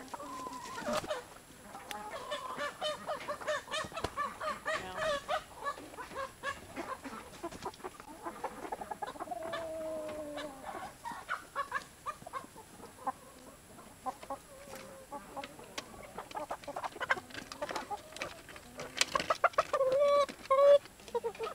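Flock of chickens clucking and calling in short notes, with some drawn-out gliding calls and many sharp clicks among them. A louder run of calls comes near the end.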